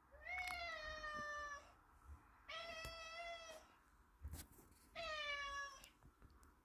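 Domestic cat meowing three times, each a long drawn-out meow of about a second, asking for a closed door into the cellar to be opened.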